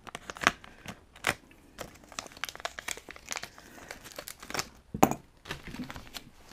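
Plastic packaging crinkling and crackling as aluminium RC tie rods are unwrapped, with a few louder sharp clicks among the crackle.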